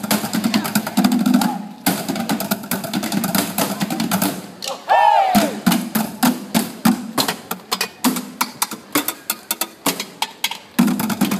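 A street drum troupe beating plastic barrel drums and attached metal pans with drumsticks in a fast, driving rhythm. A short shout rises and falls about five seconds in.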